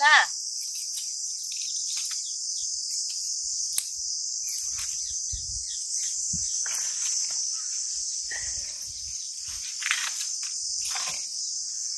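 A steady, high-pitched insect chorus drones on without a break. A single sharp click comes about four seconds in.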